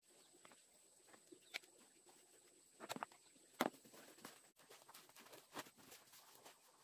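Faint scattered taps and rustles of rice being spooned from a bowl and packed into a folded leaf, with a sharper tap about three and a half seconds in.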